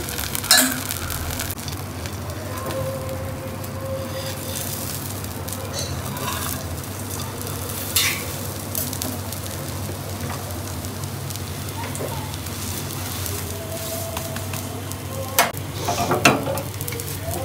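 Egg-dipped burger bun sizzling steadily on a hot black iron tawa griddle. A metal slotted spatula clicks against the griddle a few times: about eight seconds in, and again in a short cluster near the end.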